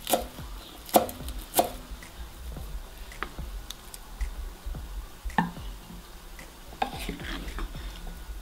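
A chef's knife chops parsley on a wooden cutting board, with three sharp chops in the first two seconds. After that, a wooden spatula stirs a frying pan of stewed liver and vegetables, giving a few light knocks and scrapes against the pan.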